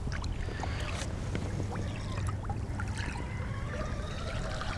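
Steady low hum and faint water noise of a jon boat on the water, with a few light ticks from the baitcasting reel being worked and a faint whine slowly rising in pitch over the second half.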